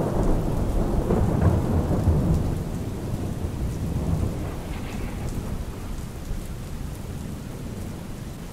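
A roll of thunder over steady rain. The rumble comes in at the start, is loudest for the first couple of seconds and dies away slowly while the rain keeps falling.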